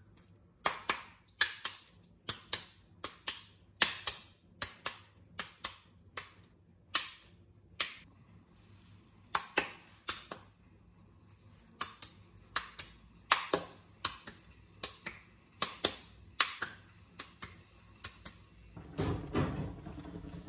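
Wet slaps of ground-meat patties being tossed and patted between the palms to shape them, a sharp hit about every half second to second, irregularly spaced. Near the end comes a denser rustling clatter.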